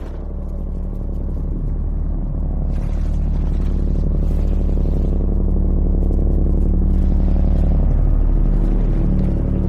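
A loud, deep rumbling drone with a steady pitched hum in it, swelling gradually and cutting off abruptly at the very end.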